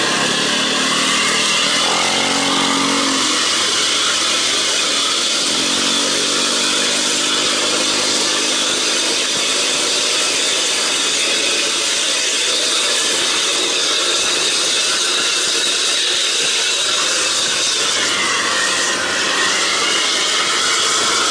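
Bus engine and exhaust running at highway speed under heavy wind and road noise, the engine pitch dipping and rising twice.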